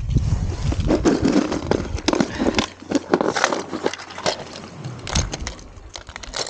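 Close handling noise: a jacket sleeve and gloved hands rustling, with many sharp clicks and crackles, as a minnow lure is handled right at the camera.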